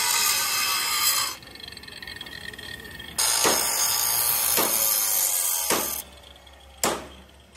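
Power tool grinding on metal in two loud bursts. It cuts off sharply a little over a second in and starts again about three seconds in. Four sharp knocks come roughly a second apart.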